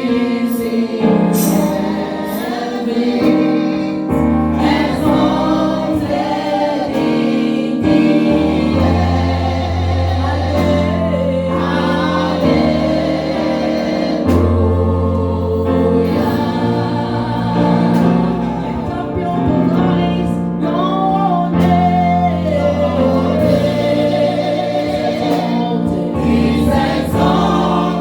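Gospel choir singing a praise song over sustained bass and keyboard accompaniment.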